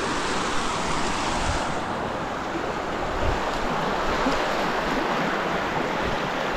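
Creek water rushing steadily, with a few soft low thuds of footsteps wading across it.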